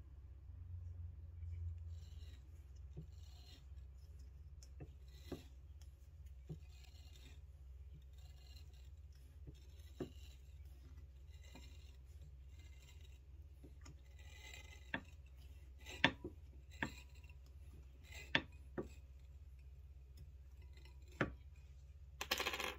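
Combed wool being pulled by hand off the metal tines of a clamped wool comb: faint, repeated scratchy swishes of fibre dragging through the tines, with several sharp clicks scattered through and a short louder rasp near the end. This is the drawing-off of combed top, a step in preparing fleece for spinning. A steady low hum lies under it.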